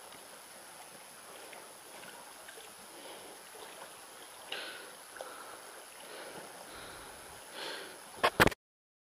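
Shallow rocky stream flowing and trickling steadily, with a few faint brief knocks. Near the end come two or three sharp clicks, and then the sound cuts off abruptly into silence.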